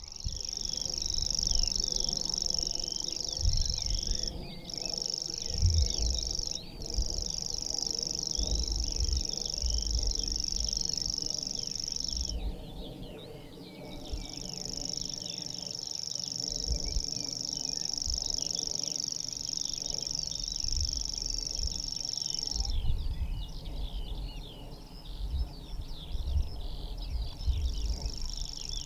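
Grasshopper warbler reeling: a continuous high-pitched, insect-like trill, broken briefly twice early on, pausing for about a second and a half before the middle, stopping about four-fifths through and starting again near the end. Other small birds chirp and sing more quietly beneath it.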